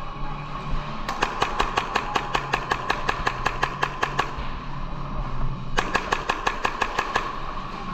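An airsoft gun firing two full-auto bursts of rapid clicking shots, about ten a second. The first burst lasts about three seconds and the second, starting near the end, about a second and a half, over a steady hum.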